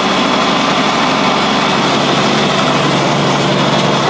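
John Deere 4020 tractor's inline six-cylinder engine running steadily at idle speed, heard from inside the cab.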